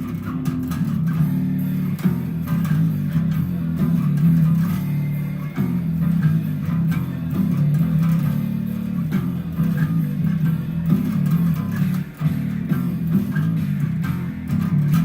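Bass guitar playing a continuous line of plucked notes, a full run-through of a song's bass part, with a brief drop in level about twelve seconds in.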